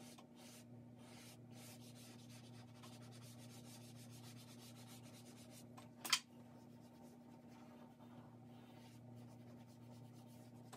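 Faint shading strokes of a dry drawing stick rubbing and scratching across drawing paper, with one sharp tap about six seconds in, over a faint steady low hum.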